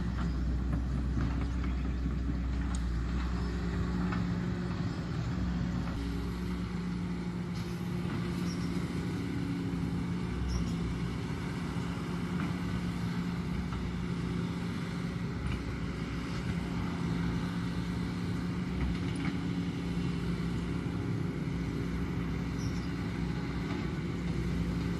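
Hydraulic excavator's diesel engine running steadily with a constant hum, its deepest rumble easing off about six seconds in.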